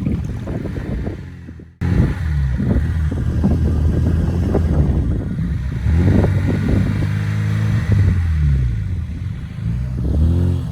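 An off-road 4x4's engine revving up and down again and again, with clattering knocks. This is the sound of a vehicle straining with its wheels spinning while stuck in mud.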